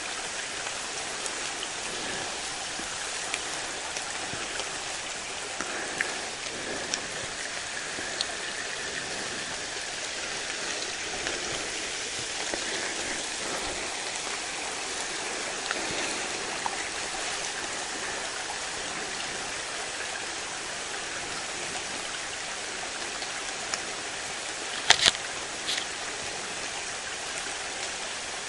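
Steady, dense night chorus of insects such as crickets and katydids in late-summer woods, a continuous hiss with a faint held trill. Scattered small clicks run through it, and two sharper snaps come close together near the end.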